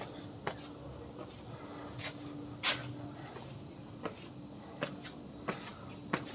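Footsteps walking at a steady pace, about one sharp step every 0.7 seconds, with one louder step just under three seconds in. A faint steady hum sits underneath.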